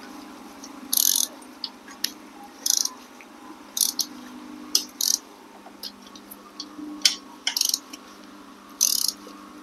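Hand ratchet wrench clicking in about eight short, quick bursts as small bolts on a motorcycle engine's rear cover are run down, over a steady low hum.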